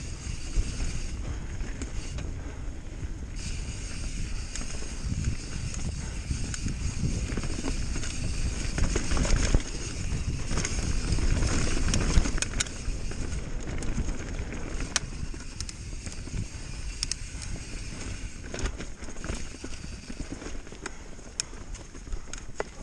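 Bird Aeris mountain bike riding fast down a dirt trail: a steady rumble of tyres and wind on the camera's microphone, with frequent clicks, knocks and rattles from the bike over bumps and roots. It gets louder for a few seconds near the middle.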